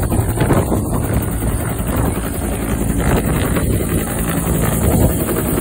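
Bell Huey-type helicopter with a two-blade main rotor hovering low overhead and lifting away: turbine and rotor running steadily, with the rotor downwash buffeting the microphone.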